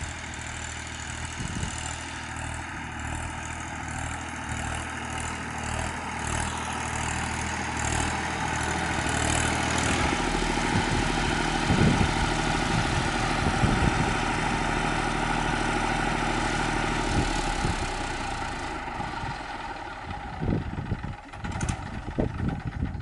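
Tractor engine running steadily, growing louder about halfway through and easing off near the end.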